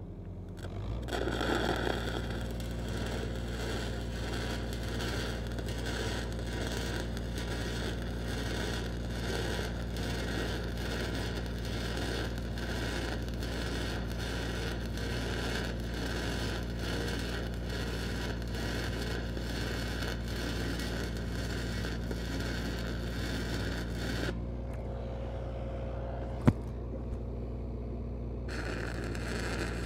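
Stick-welding arc from a 5/32" E8010 cellulose rod, crackling steadily, with the Lincoln SAE 300 engine-driven welder running underneath. The arc strikes about a second in and breaks off about 24 seconds in. A sharp click comes in the pause, then the arc starts again near the end.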